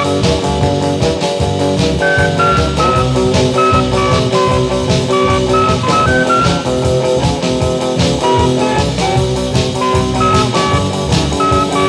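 Late-1950s instrumental rock and roll record: a lead melody of held notes steps up and down over guitar and a steady drum-kit beat.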